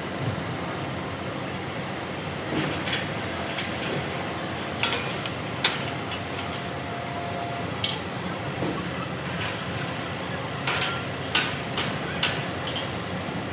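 Construction site noise: a steady rumble of machinery with scattered sharp knocks and clanks, about a dozen over the stretch.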